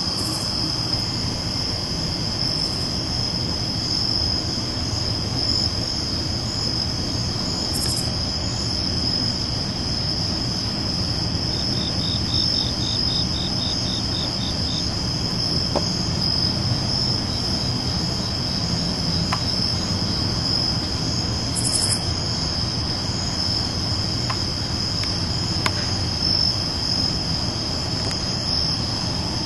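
Crickets chirping in a continuous, steady high-pitched trill over a low, steady background rumble.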